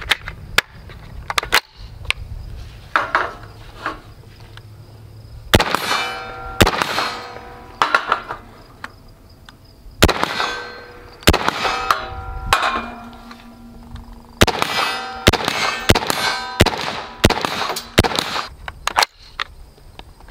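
A long string of single shots from an H&K SL8-1 semi-automatic rifle in .223, fired at an irregular pace. Many of them are followed by the clanging ring of a steel target being hit.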